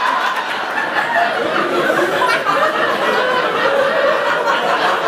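Audience laughing at a joke: a loud, sustained wash of many people's laughter.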